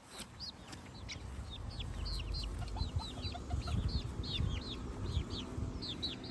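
Young chickens peeping: many short, high chirps, each sliding down in pitch, several a second and overlapping, over a low rumble.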